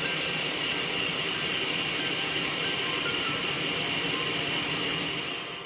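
Instant Pot pressure cooker venting steam through its pressure-release valve during a quick release: a loud, steady hiss that tails off near the end as the pressure runs down.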